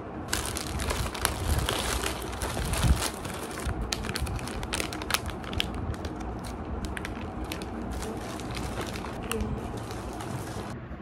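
Soft plastic packaging of wet-wipe packs crinkling and crackling as it is handled, with many sharp crackles; it stops suddenly near the end. A steady low rumble runs underneath.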